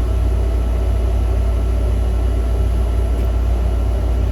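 Desktop PC running as it boots: a steady hum from its cooling fans, unchanging throughout.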